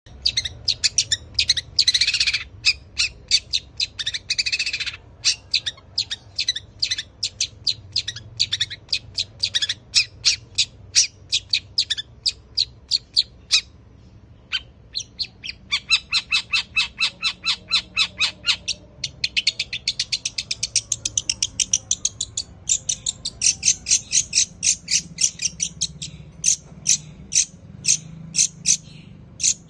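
Caged long-tailed shrike (cendet) singing in its sparrow-mimicking style: long runs of sharp, high chirps, several a second, broken by two harsh buzzy notes in the first five seconds and a short pause about midway.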